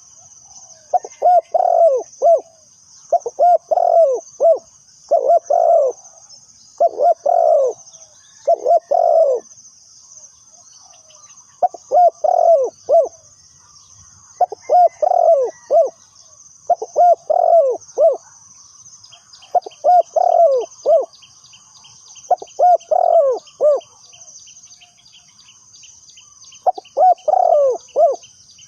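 Spotted dove cooing: about eleven short phrases of several low, falling coo notes, repeated every couple of seconds with brief pauses.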